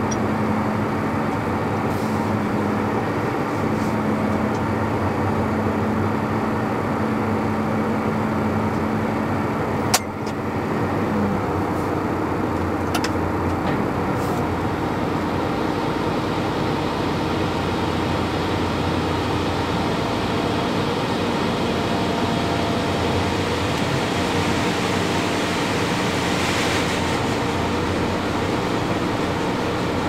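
Tractor engine running steadily, heard through the cab. There is one sharp click about ten seconds in, and a hiss builds in the second half.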